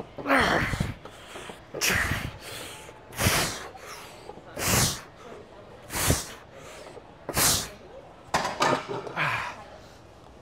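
A man's hard, forceful exhalations, one with each repetition of a heavy weight-machine row, about every second and a half; near the end they come quicker, several in a row, as the set gets harder.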